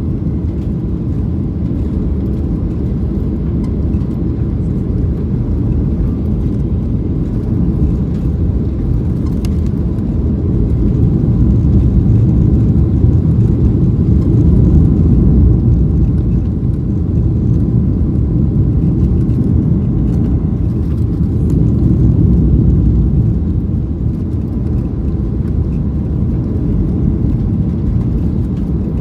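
Cabin noise inside a Boeing 737-600 during its landing: a steady low rumble of the CFM56 jet engines and rushing air, swelling louder in the middle and again briefly later.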